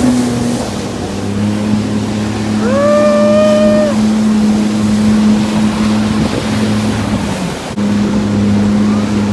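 Jet ski engine running steadily at speed, with wind and water noise. About three seconds in there is a brief high whoop that rises and then holds.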